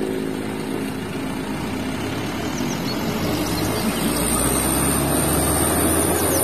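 Loaded light diesel dump truck driving past: a steady engine drone with tyre noise on the road, swelling slightly toward the end.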